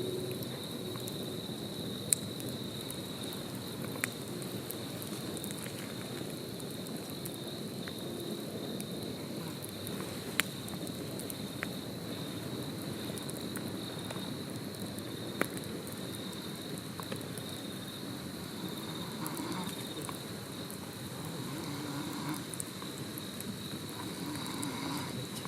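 Wood campfire burning with a soft crackle and a few sharp pops, under a steady high-pitched chirring of insects.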